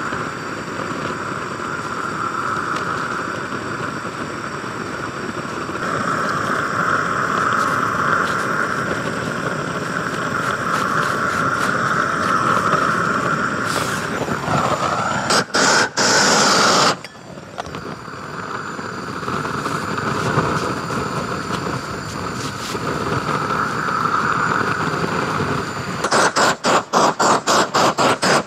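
Gas roofing torch burning with a steady hiss and a tone, heating bitumen torch-on membrane. About halfway through and again near the end it gets louder and stutters rapidly on and off.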